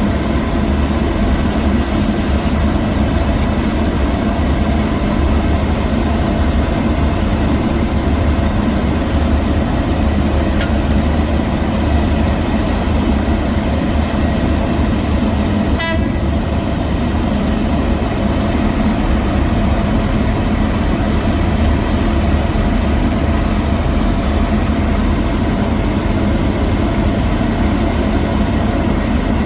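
Heavy road-construction machinery running steadily: a constant diesel engine drone with a low hum and several steady tones, plus two short clicks about ten and sixteen seconds in.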